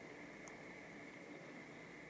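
Near silence: room tone, a faint steady hiss with a thin, steady high tone.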